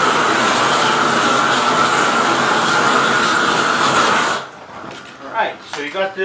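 Propane roofing torch burning with a steady rushing noise as it heats torch-down modified bitumen membrane, dropping away suddenly about four seconds in.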